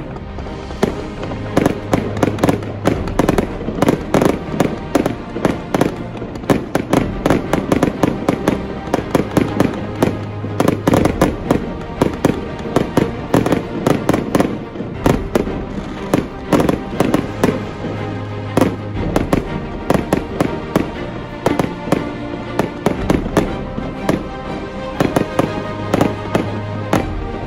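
Fireworks display: a dense run of sharp bangs and crackles from aerial shells, starting about a second in, with background music under it.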